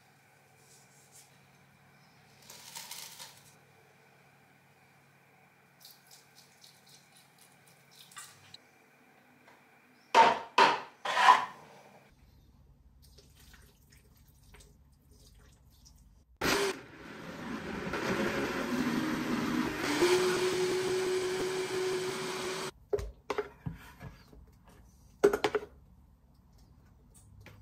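A few sharp clinks against a plastic blender jar, then a countertop blender runs for about six seconds, its pitch stepping up partway through, and stops abruptly. A metal spoon clinks in the jar near the end.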